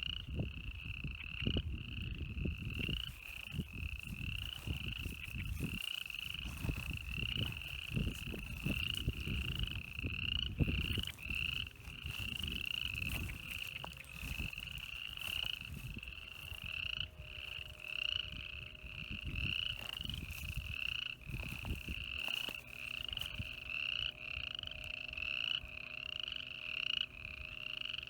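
An animal calling over and over in a steady rhythm of short, high, upward-hooked calls, about one and a half a second. Low wind rumble on the microphone fills the first half.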